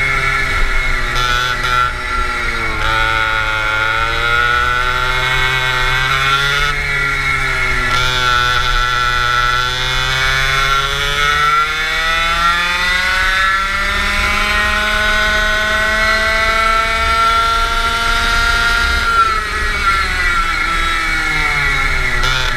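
Go-kart engine heard from onboard, its pitch dropping as the kart slows into a corner and climbing as it accelerates out. A long rise in pitch runs from about ten seconds in, falls again a few seconds before the end, then starts to climb once more.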